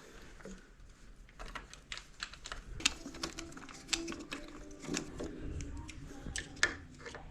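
Irregular light clicks and taps from small bicycle parts and tools being handled during assembly.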